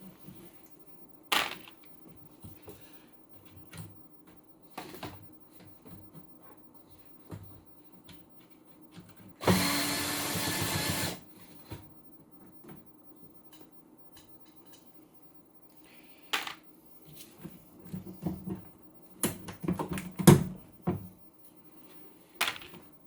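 Bench repair work: scattered clicks and knocks of tools and small parts being handled, with a small power tool running in one short burst of about a second and a half near the middle.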